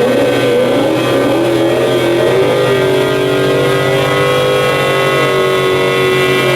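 A car engine running at sustained high revs. Its pitch wavers for the first two to three seconds and then holds steady.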